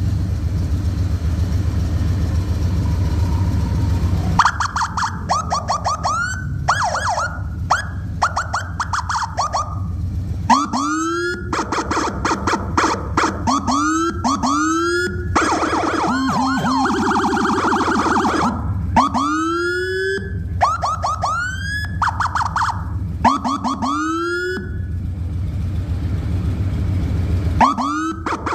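Whelen electronic siren on a Harley-Davidson Road Glide run through its tones over the motorcycle's idling engine: the engine runs alone for about four seconds, then comes a series of short rising whoops in quick groups, with a fast warbling stretch past the middle.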